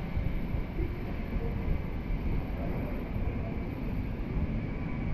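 Outdoor city street ambience: a steady low rumble with a few faint snatches of chatter from people at café tables.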